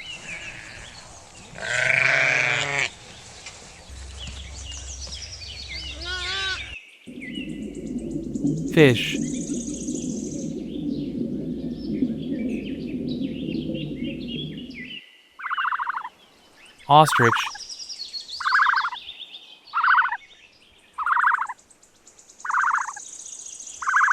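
A sheep bleats. This is followed by about eight seconds of steady, low watery bubbling in the fish segment, and then a run of short calls repeating about every second and a quarter, given as an ostrich.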